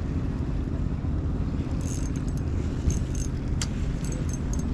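Wind buffeting the microphone as a steady low rumble. From about two seconds in come faint small ticks and one sharper click of an ultralight spinning rod and reel being handled.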